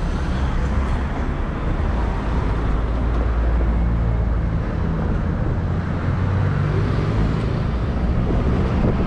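Street traffic noise: cars and engines running past, a steady low rumble.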